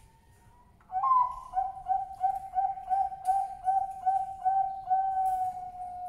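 Male zebra dove of the Bangkok perkutut strain singing. A sharp opening note about a second in is followed by a quick run of about a dozen short coos, about three a second, ending on a longer held note.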